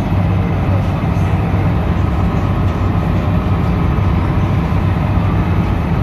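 Riverboat's engine running steadily while under way, heard inside the passenger cabin as an even low hum.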